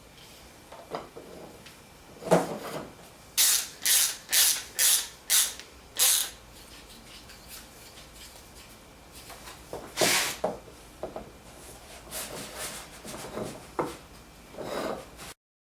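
Oak workpieces rubbing against each other in a run of about six quick strokes a few seconds in, with scattered single scrapes and knocks of wood handling before and after.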